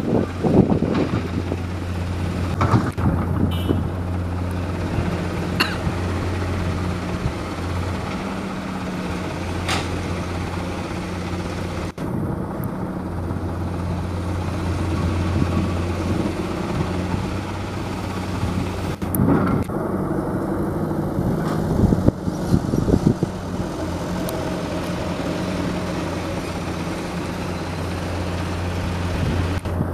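Heavy diesel engines of dump trucks and an excavator running steadily with a low drone, broken by a few short clattering knocks early on and again about twenty seconds in.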